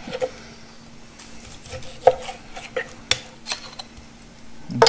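Knife and metal tongs working slices of cooked tri-tip on a wooden cutting board: scattered sharp clicks and knocks of the tongs and blade against the board, with a louder clatter near the end.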